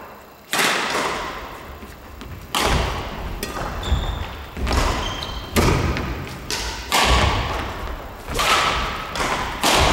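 Badminton rally: rackets striking the shuttlecock about once a second, each hit echoing through the hall, with thuds of footsteps on the wooden court floor.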